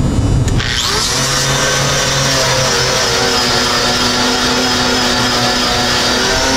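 A 4.5-inch angle grinder with a paint-remover strip disc runs against steel plate, stripping mill scale off the metal. About half a second in, the motor's pitch rises quickly, then holds steady under a bright, continuous hiss.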